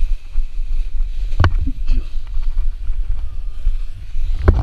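Wind buffeting a GoPro HERO4 microphone in paraglider flight: a loud, gusting low rumble, with a sharp knock about a second and a half in and another near the end.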